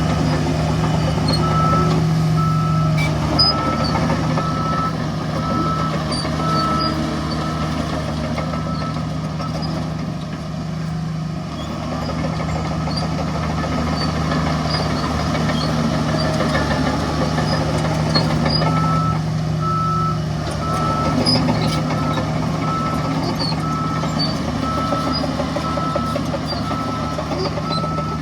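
Heavy diesel earthmoving machinery running steadily, with a reversing alarm beeping in two spells: a few seconds near the start, and again from about two-thirds of the way through. A couple of sharp knocks sound over the engine.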